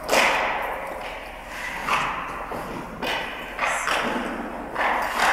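Hockey sticks striking pucks on the ice: about five sharp knocks a second or so apart, each ringing on in the empty rink.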